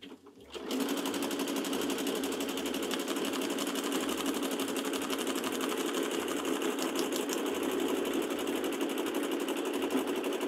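Home sewing machine starting about half a second in and then running steadily at speed, sewing a 4.0 mm-wide free-motion zigzag stitch, with rapid even needle strokes.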